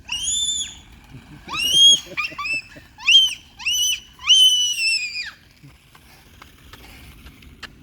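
A young child's high-pitched squeals, a string of about six, each rising then falling in pitch, the last one the longest, ending a little after the middle.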